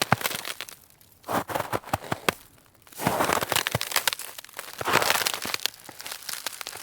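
Snow shovel scraping and scooping snow in a series of crunchy strokes, with a short pause about two and a half seconds in.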